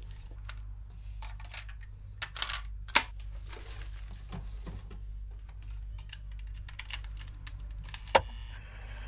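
Hands rummaging and handling small hard objects: rustling and a run of small clicks and knocks, with two sharper clicks, about three seconds in and near the end, over a low steady hum.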